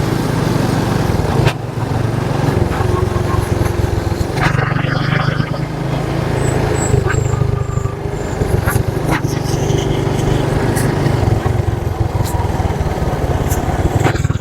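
Motorcycle engine running steadily while riding along a road, with brief dips in the engine note about a second and a half and four and a half seconds in.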